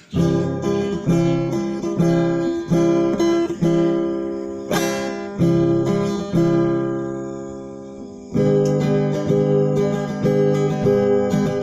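Background music played on acoustic guitar, plucked and strummed, with no vocals. About six seconds in a chord is left ringing and fades away, and the playing resumes about eight seconds in.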